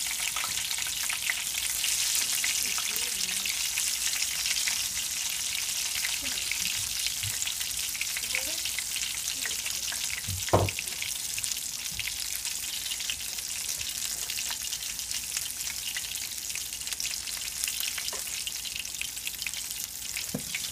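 Battered oyster mushroom pieces shallow-frying in hot oil in a skillet: a steady crackling sizzle. About halfway through there is one sharp knock.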